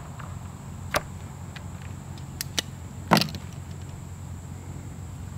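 Scissors snipping green visco fireworks fuse: a sharp snip about a second in, two light clicks, then the loudest clack just after three seconds as the scissors are handled and laid down on the wooden table.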